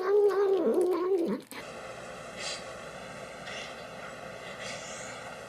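A cat yowling in one long, wavering call that cuts off abruptly about a second and a half in. A steady, quieter hum follows.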